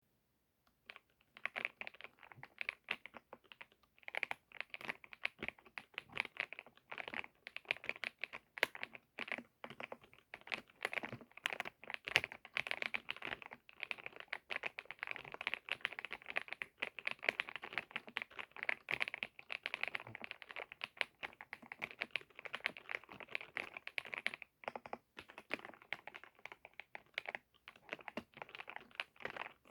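Typing on a computer keyboard: fast, continuous keystrokes with a pebble-like clack, broken by a few brief pauses.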